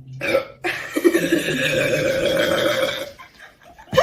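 A person's voice: a short vocal sound, then a long strained one held for about two and a half seconds, and a brief sharp one at the end.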